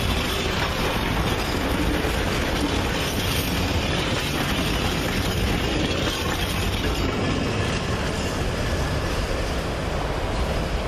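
Freight train of tank wagons rolling past on the rails, a steady noise of wheels on track; the last wagons go by within the first few seconds, but the noise carries on evenly as the train climbs away.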